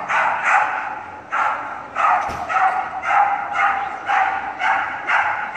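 A dog barking over and over, about two barks a second, each bark echoing.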